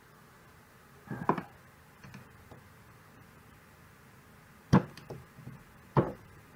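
Screwdriver tip clicking and tapping against the auto-locking hub's housing and retaining ring as the ring is pried out through a slot cut in the housing. A few scattered sharp clicks, the loudest two about five and six seconds in.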